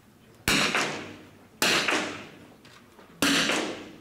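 Three .22-calibre smallbore target rifle shots fired by different shooters on the line, a second or so apart. Each is a sharp crack that rings on in the hall's echo.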